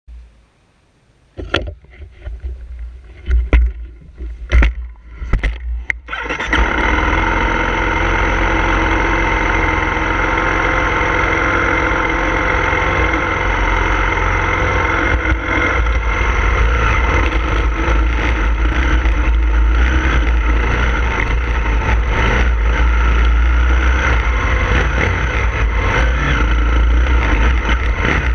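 A few sharp knocks and clatters, then the 2016 KTM 250 SX-F's single-cylinder four-stroke engine starts about six seconds in and runs steadily, heard close from the handlebars as the bike rides off.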